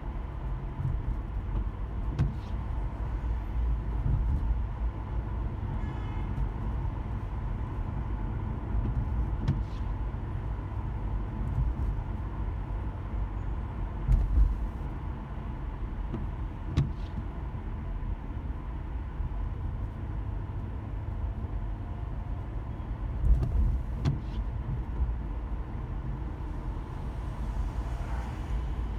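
A car driving: a steady low rumble of engine and road noise, with a few short knocks and thumps scattered through it.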